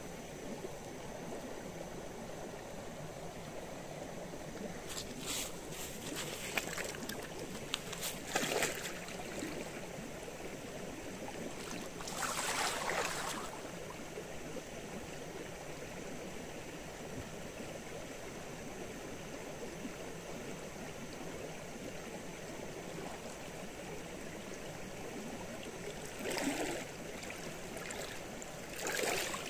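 Steady flowing water, with a handful of short, louder sounds over it, the longest about twelve seconds in.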